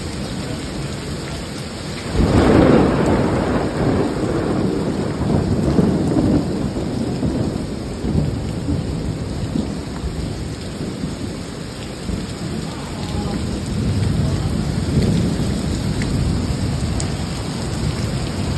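Rainstorm noise: rain and wind making a dense, steady low rumble that swells suddenly and loudly about two seconds in, with smaller surges later.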